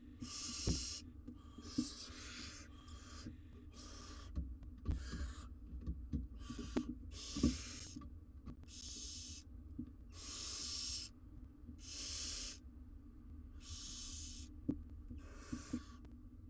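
Barn owl nestlings giving their rasping, hiss-like "snoring" calls, the begging call of young barn owls, about a dozen times at roughly one a second. Soft knocks of the chicks moving in the wooden nest box sound under a steady low hum.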